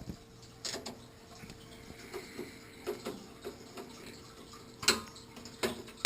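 Irregular small metallic clicks and taps of a screwdriver driving the screw that fastens a graphics card's bracket to a desktop computer case, the loudest knocks a little before five seconds in and at the end.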